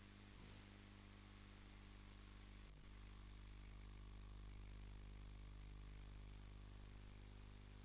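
Steady low electrical hum and hiss, with a brief faint click about two and a half seconds in.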